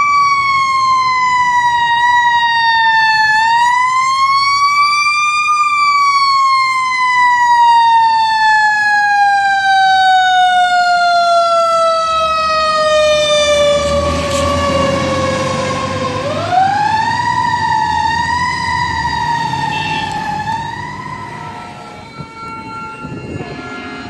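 Fire engine siren wailing, its pitch rising and falling slowly, with one long slow fall and then a fresh rise. Midway the truck passes close and its engine noise swells under the siren. The siren fades out near the end.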